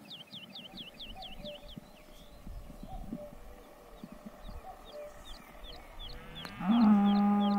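A cow mooing loudly near the end, its call rising at first and then held steady before it cuts off abruptly. Quick, repeated high bird chirps sound throughout.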